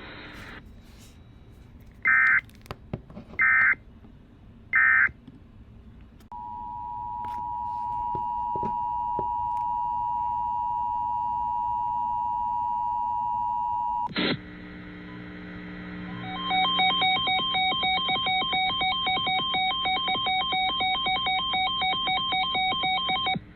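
Emergency Alert System tones: three short buzzing SAME data bursts about a second and a half apart, then the two-tone attention signal held steady for about eight seconds. After a click, a rapidly pulsing multi-tone alert that rings like a telephone runs for the last seven seconds or so.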